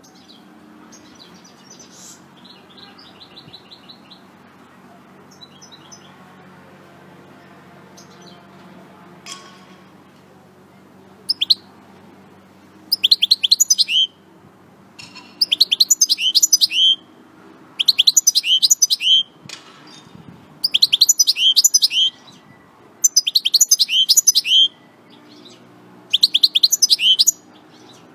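European goldfinch singing: after a few faint scattered notes, it sings a fast twittering phrase of rapid high notes, each ending on a lower note. From about ten seconds in, the phrase repeats in bursts of a second or so every two to three seconds.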